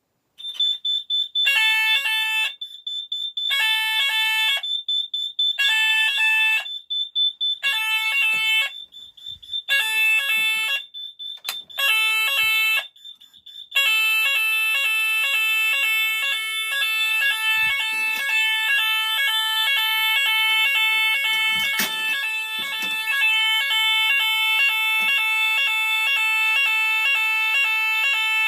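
Fire alarm sounders set off by a Hochiki break-glass call point on a Kentec Syncro panel, sounding the French fire tone. Over a steady high beep, the sounder first comes in one-second bursts about every two seconds, then about 14 seconds in switches to a continuous, rapidly pulsing tone.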